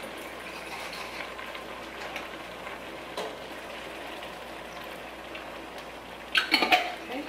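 Pot of chicken, shrimp and vegetables sizzling steadily on the stove while water-thinned marinara sauce is poured in from a glass jar, with a few light clicks. A brief louder burst comes near the end.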